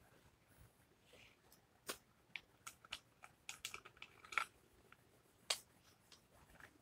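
Scattered small clicks and taps of things being handled on a table, a dozen or so over a few seconds, most of them bunched in the middle, against a quiet room.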